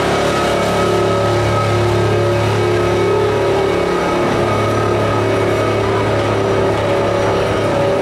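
Park train's diesel engine running with a steady, even hum as the string of open passenger cars rolls past at low speed; the steam-style locomotive is powered by a diesel generator.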